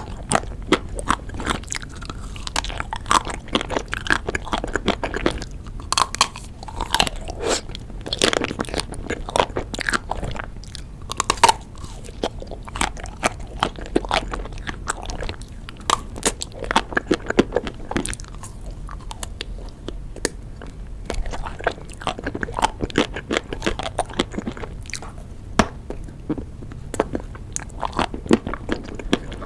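Close-miked bites into a chocolate-coated ice cream bar with almonds: the hard chocolate shell cracks and crunches in many sharp crackles, mixed with chewing.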